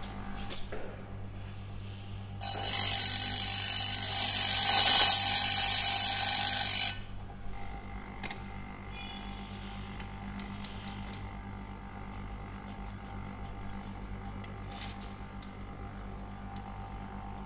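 Electric chainsaw chain sharpener running with a steady hum. From about two to seven seconds in, its grinding wheel grinds a chain cutter with a loud, high-pitched screech that cuts off suddenly. Afterwards a few light clicks as the chain is moved along in the vise.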